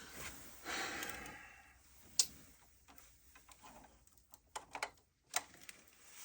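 Light clicks and handling noises from work at a breaker panel: a soft rustle, one sharp click about two seconds in, then a few small ticks near the end.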